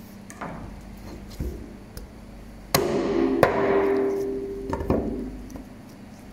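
Heavy meat cleaver chopping wild boar meat on a plastic cutting board: a couple of light knocks, then two hard blows less than a second apart, leaving a metallic ring that fades over about two seconds, and two more quick knocks near the end.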